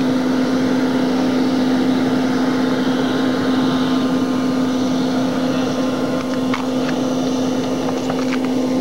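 Steady engine drone: a constant low hum over a haze of noise, with a few faint clicks late on.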